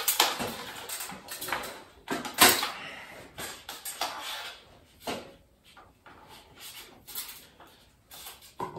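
Irregular knocks and clatters from a stepladder and a long metal shop-light fixture being handled and moved, the loudest knock about two and a half seconds in.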